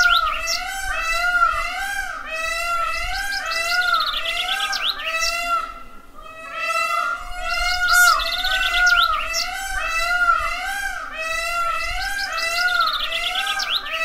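Peafowl calls: a continuous run of short calls, each rising and falling in pitch, about three a second, with recurring bursts of high, rapid chirping above them.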